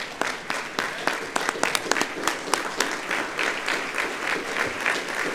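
A large audience applauding steadily, a dense mass of clapping with sharp single claps close by standing out.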